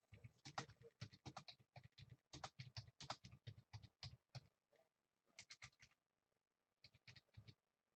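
Faint runs of quick clicks and taps, typing on a computer keyboard, in several bursts with short pauses between.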